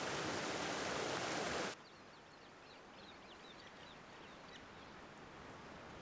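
Rushing water of a rocky stream cascading over boulders, which cuts off abruptly at a little under two seconds. After it comes a quieter outdoor ambience with a scatter of short, high chirps.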